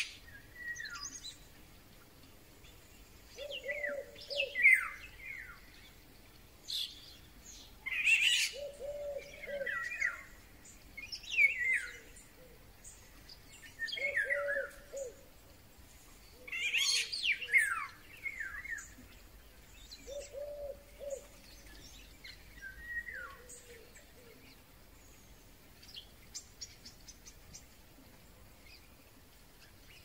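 Golden-oriole-style birdsong: whistled phrases every two to three seconds, notes sliding downward, several with a lower warbling note beneath. The uploader wonders whether starlings are imitating the oriole. The phrases thin out to faint ticks near the end, with other birds calling in the background.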